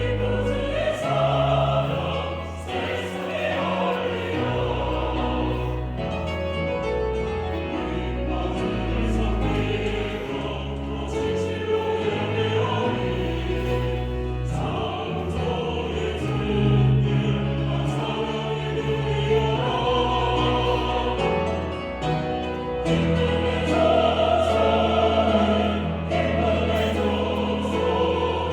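Church choir singing an anthem in several voice parts, held notes over an accompaniment of sustained low bass notes.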